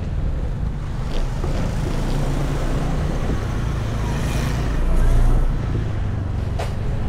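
Steady road traffic noise, with vehicle engines running low and even; it grows louder briefly about five seconds in.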